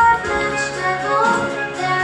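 Music from a Mandarin children's animal-dance song: a bright instrumental melody over backing accompaniment, with at most a little singing.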